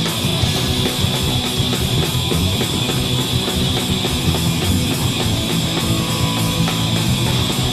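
Live heavy metal band playing an instrumental passage: distorted electric guitars, bass guitar and drum kit, with no singing.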